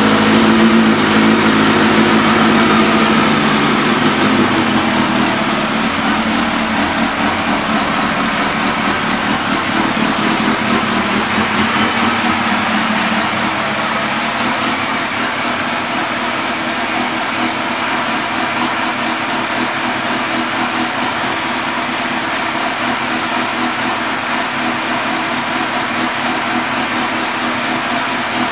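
2004 Suzuki GSX-R1000's inline-four engine idling steadily through a Yoshimura aftermarket exhaust. It is a little louder in the first few seconds.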